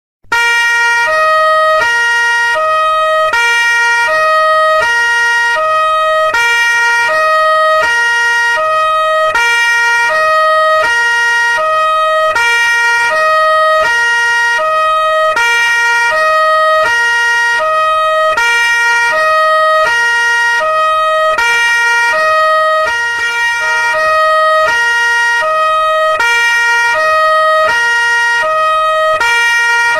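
French police two-tone siren, loud, switching steadily back and forth between a lower and a higher note, each held about two-thirds of a second.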